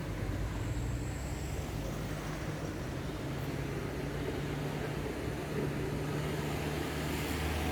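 A large vehicle's engine running steadily as a low hum, its pitch rising a little about two-thirds of the way through, over road noise.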